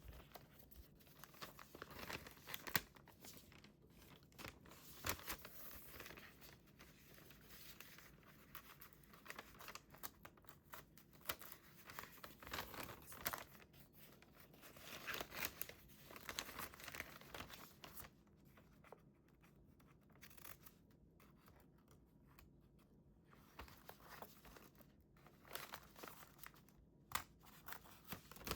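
Faint paper handling: irregular rustling and crinkling with short tearing sounds as scrapbook paper is worked by hand. The sounds thin out to scattered small clicks for a few seconds past the middle.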